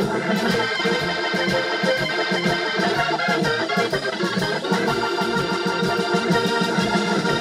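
Live blues band playing: a Hammond organ holds chords out front over a steady drum beat and electric guitar.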